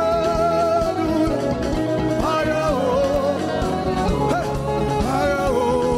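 Live gospel worship music: a man sings long held, wavering notes into a microphone over a band with drums and backing singers.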